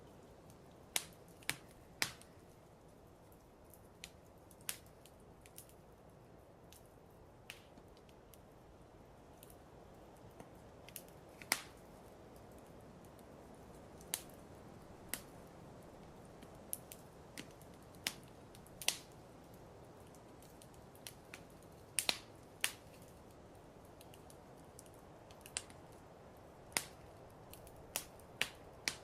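Fireplace fire crackling: sharp, irregular pops a second or several apart, sometimes two or three in quick succession, over a soft steady hiss.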